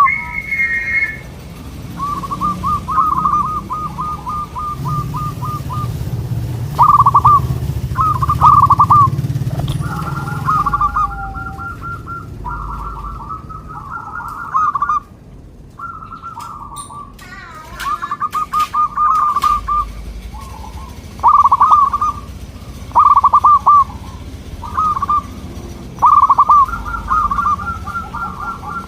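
Zebra doves cooing: repeated short phrases of quick rippling coos, with birds answering one another so that some phrases overlap.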